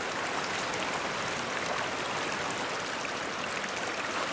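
Steady rush of a shallow, fast-flowing river running over riffles.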